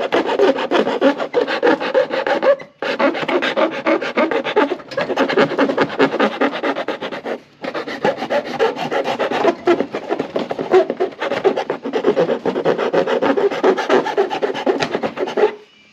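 Hand file rasping quickly back and forth on a freshly cut slot in a plastic front bumper, cleaning up its edges. The strokes run on steadily with two short breaks and stop just before the end.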